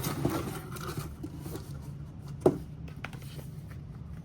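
Light handling noises of a trading-card box and its packaging: soft scraping and rustling with a sharp knock about two and a half seconds in, over a steady low hum.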